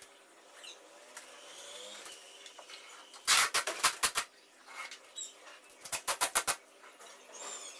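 2-inch binding tape pulled off its roll, in two short bursts of rapid ripping clicks, the first about three seconds in and the second about six seconds in.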